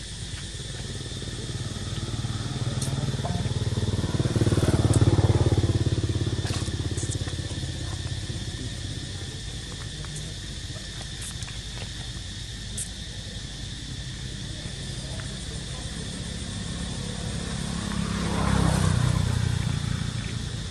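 Two motor vehicles passing by: the first swells and fades about four to six seconds in, and the second near the end. Under them runs a steady high hum.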